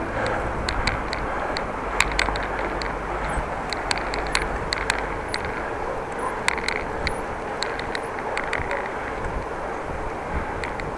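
Wind rushing over the microphone and tyre noise from a bicycle being ridden, with scattered light ticks throughout, like a jacket flapping against the camera.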